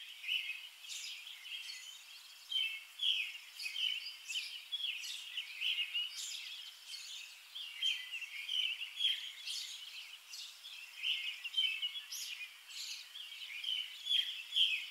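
Songbirds chirping, many short high calls following one another without a break.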